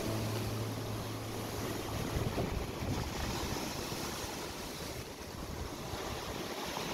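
Steady rushing noise, with a low steady hum in the first two seconds.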